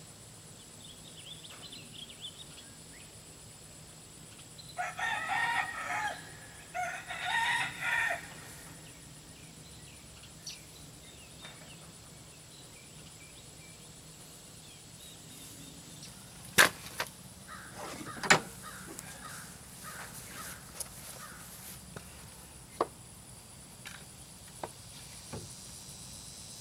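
A rooster crows about five seconds in, a drawn-out call in two parts. Later come two sharp knocks about a second and a half apart, the loudest sounds, then a few lighter clicks.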